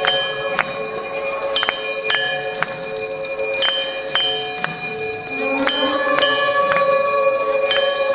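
Temple bells struck over and over, about two strikes a second, each stroke ringing on over a steady held tone.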